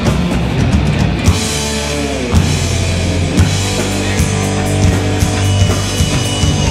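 A live rock band plays an instrumental passage on drum kit, electric guitars and bass guitar, with steady drum hits over sustained bass notes. A note slides down in pitch about two seconds in.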